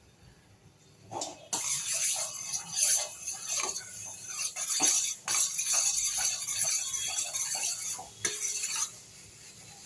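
Stirring and scraping in a saucepan of milk being cooked down into kheer, a rapid run of short scraping strokes over a hiss. It starts about a second and a half in and dies down near the end.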